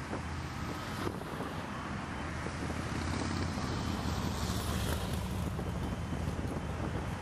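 Liebherr mobile crane's diesel engine running steadily while it holds a concrete bridge beam, a low rumble with wind buffeting the microphone, growing a little louder about halfway through.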